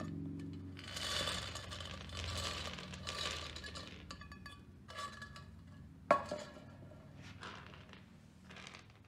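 Small fired-clay bullet plugs rattling and scraping inside a tin can as it is tipped, then spilling out and clattering onto a bench top. One sharp click comes about six seconds in, with a few scattered ticks after.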